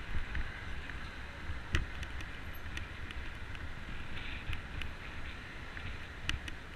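Wind buffeting a bike-mounted GoPro's microphone while riding, over steady road-traffic noise from the adjacent highway. Sharp clicks and knocks from the bicycle and camera mount rattling over the cracked path cut through, the loudest a little under two seconds in and again near the end.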